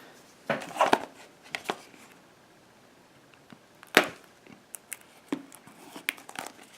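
Hands handling a small product box and its packaging: scattered light clicks and rustles, with one sharper click about four seconds in.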